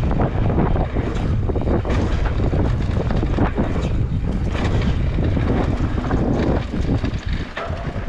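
Heavy wind rumble buffeting the microphone, easing about seven and a half seconds in.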